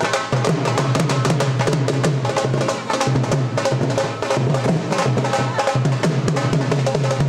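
Upbeat music with a fast, driving drum beat and a pulsing bass line.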